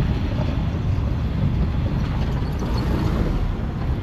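A vehicle on the move: a steady low rumble of engine and tyre noise.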